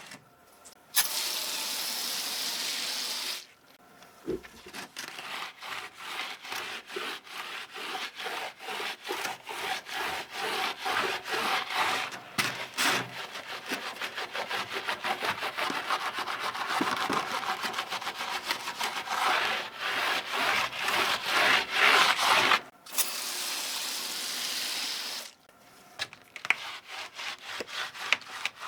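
A brush scrubbing keyboard parts in quick back-and-forth strokes. Two spells of steady hissing come about a second in and near the end.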